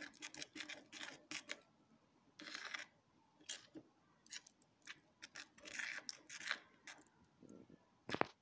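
A thin utensil stirring sticky glue-and-activator slime mixture in a small stainless-steel bowl, scraping and clicking irregularly against the metal sides, with one sharper click near the end.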